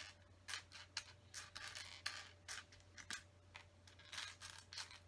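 Small plastic Lego pieces being sorted and picked out of a pile by hand: a string of light clicks and rattles, several a second.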